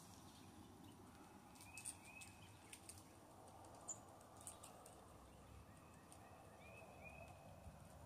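Near silence: faint outdoor ambience with a few faint short bird chirps, once about two seconds in and again near the end, and a few faint small clicks.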